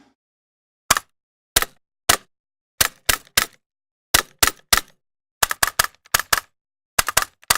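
A run of about twenty sharp, dry mechanical clicks from a tool, in uneven groups of one to four, with dead silence between the groups.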